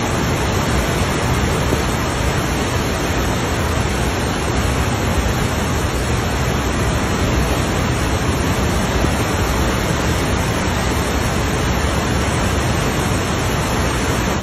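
Fast floodwater rushing down a street: a loud, steady rushing noise that never lets up, cutting in and out abruptly.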